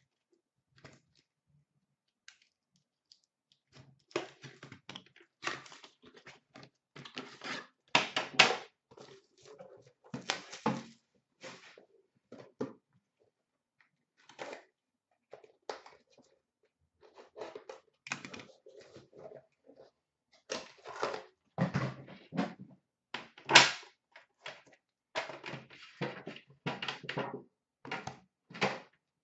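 A sealed trading-card box being opened and the metal tins inside handled. After a few quiet seconds come irregular rustling of the box and wrapping, knocks and thunks as the tins are lifted out and set down on a glass counter. A few of the strikes are sharp and loud.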